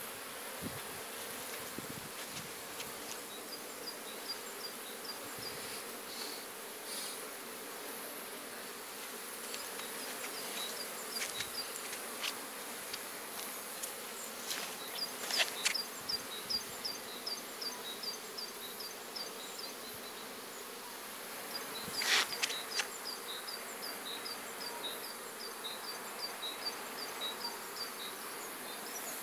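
Honeybees buzzing in a steady hum around the entrances of Langstroth hives. Over it, a short high chirp repeats about three times a second in long runs, and a few sharp knocks come around the middle and about three-quarters of the way through.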